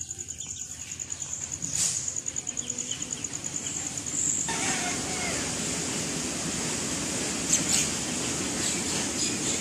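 Ducklings peeping softly over a high insect trill that pulses rapidly. About halfway a steady rushing noise starts suddenly and covers them, with two sharp clicks near the end.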